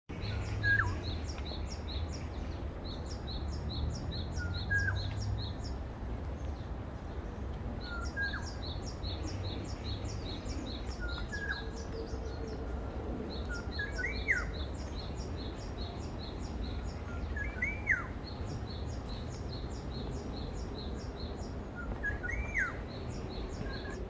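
Wild birds singing in a leafy forest. One repeats runs of quick, high, evenly spaced notes lasting a few seconds each, and another gives a short swooping call every three to four seconds. A low wind rumble sits underneath.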